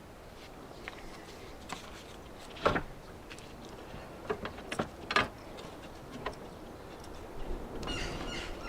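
Scattered light clicks and knocks of tools and metal parts being handled while working on a Land Rover Discovery 2's rear door. The loudest knock comes about a third of the way in, with a quick run of clicks around five seconds in.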